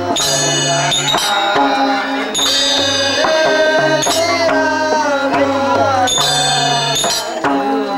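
Music: a hand-drum beat under a melody of held notes that change every second or so, some sliding in pitch.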